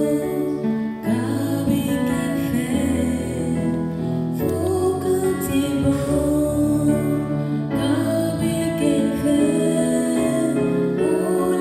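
A woman singing a slow song into a microphone, accompanied by a Yamaha PSR-S770 arranger keyboard holding long sustained chords.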